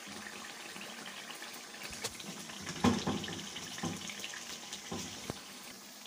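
Thick tomato gravy bubbling and sizzling in a pan, with several soft plops as chicken seekh kebabs are set into it one after another, the loudest about three seconds in.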